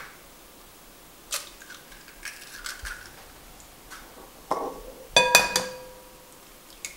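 Light clinks on glassware, then a sharp knock about five seconds in that leaves a glass bowl ringing: an egg being cracked on the rim of a glass mixing bowl.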